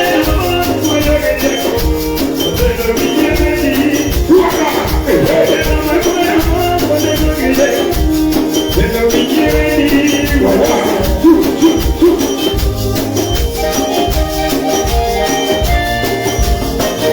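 A live band playing loud music with a steady, regular bass beat, sustained pitched instrument lines and a quick high rattling percussion pattern.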